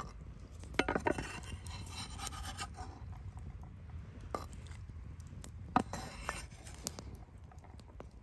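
Knife blade scraping chopped vegetables across a wooden cutting board: a longer scrape about a second in and a shorter one around six seconds, with a few sharp clicks between.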